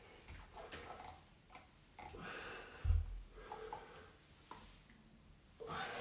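A man breathing hard in a few heavy exhalations, winded from a set of planks with leg raises, with one dull thump about three seconds in as his knees come down onto the exercise mat.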